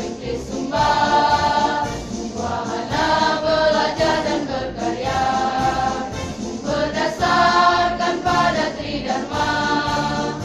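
Women's choir singing a march, several notes held for about a second each.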